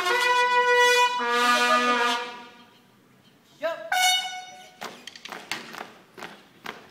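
Bugles of a school drum-and-bugle band sound a call of held notes that stops about two seconds in. After a short gap they play a brief second phrase that opens with an upward slur. Then come quick marching footsteps on concrete, about three a second.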